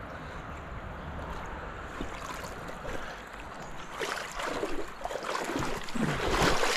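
Steady rush of river water. From about four seconds in comes a run of uneven scuffs of footsteps and clothing rustle on a rock bank.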